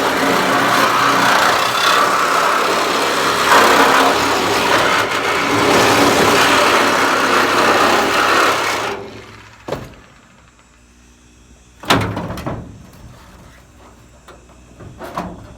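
A power cutting tool cutting through the sheet-steel panels of a pickup truck bed, running loudly and steadily, then stopping suddenly about nine seconds in. A few sharp metal clanks follow, the loudest about three seconds after the cutting stops.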